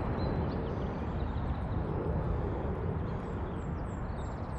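Steady outdoor noise, mostly a low wind-like rumble on the microphone. In the second half there is a faint series of short, high chirps, about two a second.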